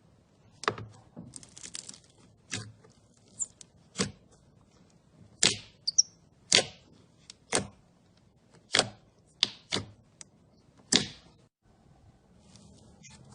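Slime being pressed and worked, giving about a dozen sharp, irregularly spaced pops and clicks.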